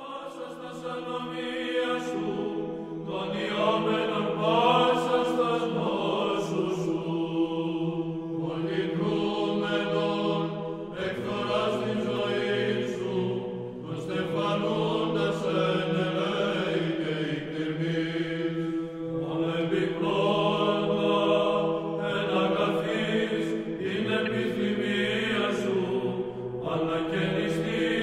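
Chanted vocal music: a melody sung over a steady held drone note, starting just as the silence ends.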